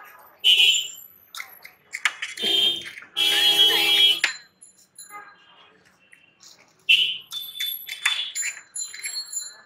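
Street noise: several short, bright ringing tones and, about three seconds in, a loud sustained tone lasting about a second, with a few brief voices.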